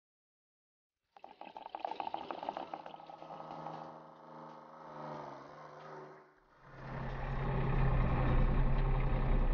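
Liquid poured from a jug into a tractor's tank, a gurgling fill, followed about two-thirds in by the tractor's diesel engine running with a steady low hum.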